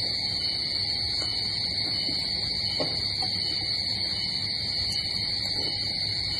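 Steady high-pitched insect chorus over a low hum, with a few faint clicks of spoons against bowls.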